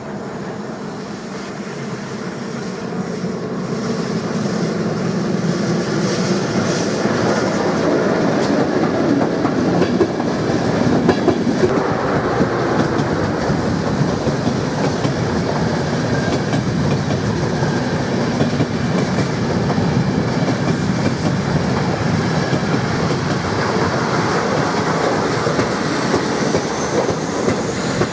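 Locomotive-hauled passenger train passing close, its wheels running on the rails; it grows louder over the first several seconds as it approaches, then holds steady as the coaches roll by.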